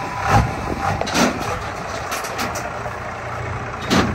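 12-valve Cummins inline-six diesel running at low revs as the lifted truck creeps up steel trailer ramps, with a few sharp metal clunks from the ramps and trailer under the tyres, the loudest near the end.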